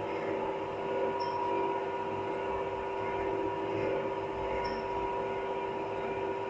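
1976 SLZ passenger elevator in steady travel: its AS-2-62 two-speed hoist motor and gear give a steady hum with a constant whine, at a loud running level that has come back since the motor's repair.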